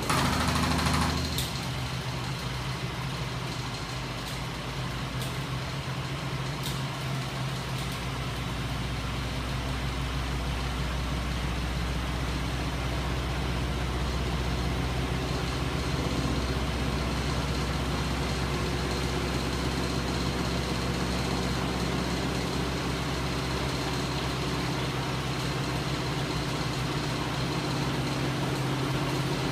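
Homemade magnet engine rig running on its battery-powered electric motor, with its DC generators turning: a steady mechanical hum. There is a louder burst in the first second or so and a few sharp clicks early on, and the running gets slightly louder about eight seconds in.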